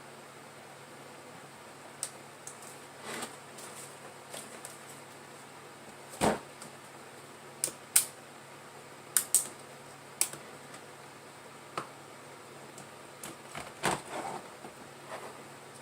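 Irregular sharp clicks and taps with two heavier knocks, from small hard objects being handled and set down on a work surface over a faint steady hiss.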